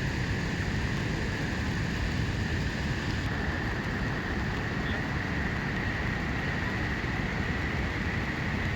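Steady roar of a waterfall, even and unbroken, with a steady high tone running through it.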